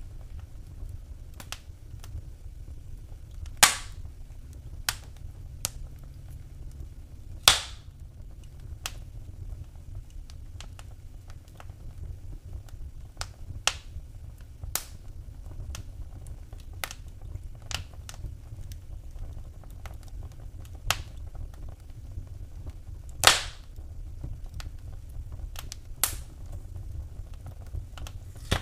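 Wood fire in a fireplace crackling: scattered sharp pops and snaps at irregular intervals, the loudest about 3.5, 7.5 and 23 seconds in, over a steady low rumble of the flames.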